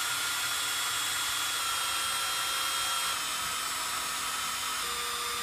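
Cordless drill running steadily, spinning a rod that winds wire into a coil spring. Its whine steps down slightly in pitch a few times.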